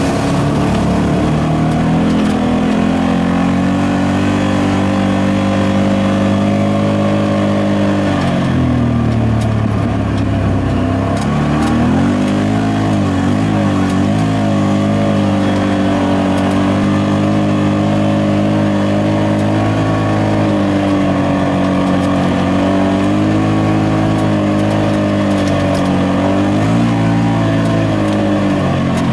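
Side-by-side UTV engine running under load, its pitch rising and falling with the throttle. About nine seconds in the revs drop away, then climb back and waver for a few seconds before settling.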